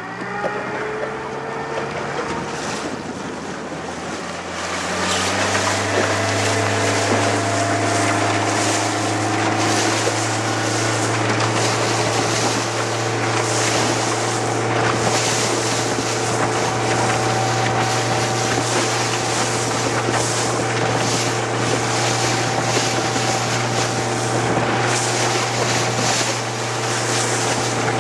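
Motorboat engine speeding up over the first five seconds, its pitch rising, then running steadily at speed, with wind buffeting the microphone and water rushing past.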